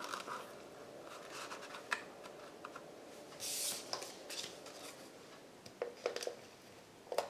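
Hands handling a card-stock gift box and sheer ribbon on a craft mat: soft paper rustles and small clicks, with a brief hissing scrape about three and a half seconds in and a few light taps near the end.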